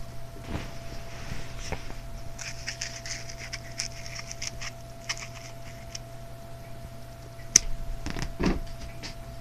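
A cat's paws and claws pattering and scratching in a quick run of small clicks, then a single sharp tap and a soft thump near the end.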